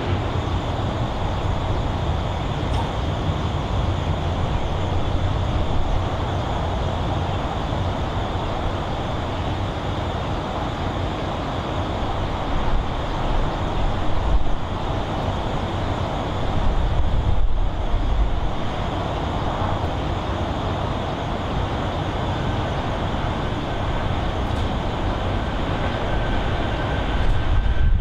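A Boeing 777's twin jet engines at takeoff power during its takeoff roll: a steady, deep rumble with a hiss above it, swelling a little in the middle and again as it lifts off near the end.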